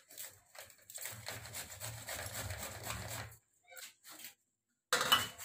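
Cauliflower being grated on a metal box grater: a few scrapes, then a run of quick grating strokes for about two and a half seconds, with a short louder burst of noise near the end.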